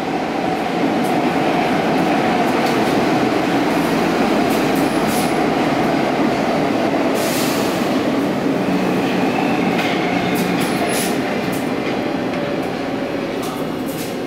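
Stockholm metro train running through a tunnel, heard from inside the car: a steady rumble of wheels on rails with a faint whine and scattered short clicks. Near the end the whine falls slightly and the sound eases as the train slows into a station.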